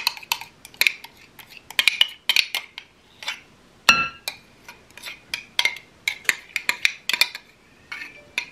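Spoon scraping and tapping against a measuring cup and a glass mixing bowl while mayonnaise is scraped out: a steady run of sharp clinks and scrapes, with one louder ringing clink about four seconds in.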